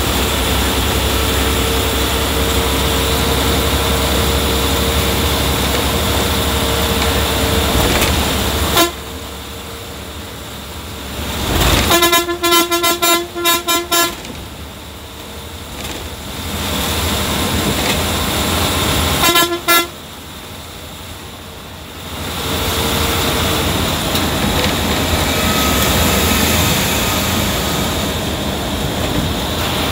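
Bus horn sounded in a rapid string of short honks about twelve seconds in, and two quick toots again about seven seconds later, over the steady engine and road noise of the moving bus heard from inside the cabin.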